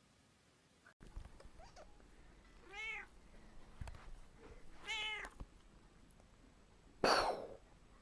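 A cat meowing twice, two short calls that rise and fall in pitch, about two seconds apart. A short burst of noise follows near the end.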